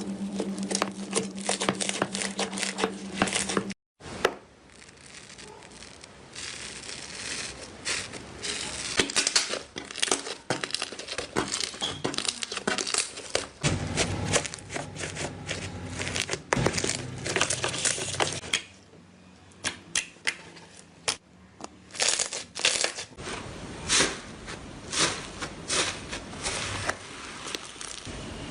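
Slime being squeezed, poked and stretched by hand, making dense runs of sharp clicking and crackling pops. The sound drops out briefly about four seconds in and goes quieter for a couple of seconds later on.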